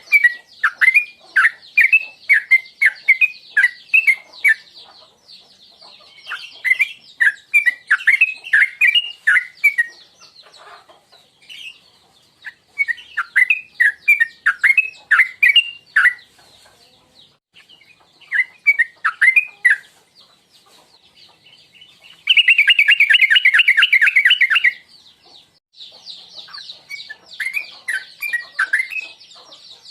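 Yellow-vented bulbul (trucukan) singing: phrases of quick, bubbly whistled notes separated by short pauses, with a fast, loud trill about 22 seconds in. A steady high buzz runs underneath.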